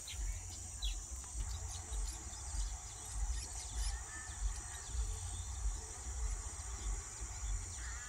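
Steady high-pitched drone of insects, with scattered short bird chirps over it and a low, uneven rumble underneath.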